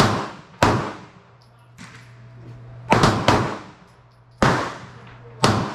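Pistol shots at a shooting range: about six sharp reports at uneven intervals, including a quick pair about three seconds in, each with a short ringing tail, plus a fainter shot about two seconds in.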